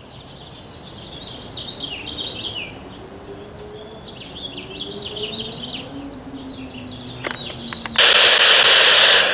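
Birds chirping and singing in short repeated calls, over a faint low hum that slowly rises in pitch. Near the end there are a few clicks, then a sudden loud, steady hiss.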